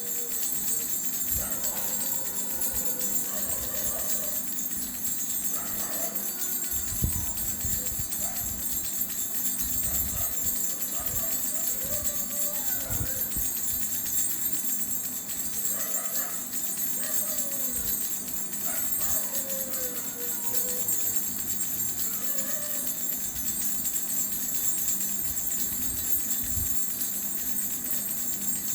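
A khulkhula, a child's hand rattle, shaken continuously in a steady, rapid jingle.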